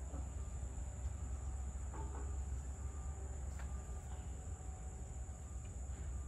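Insects trilling steadily at a high pitch over a steady low rumble. A few faint, short sounds come about two and three and a half seconds in.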